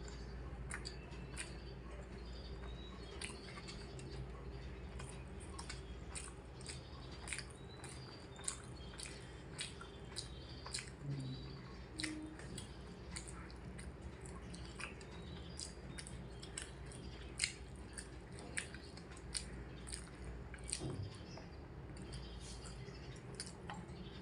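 A person chewing and eating with close, irregular wet mouth clicks and smacks, several a second, a few louder than the rest.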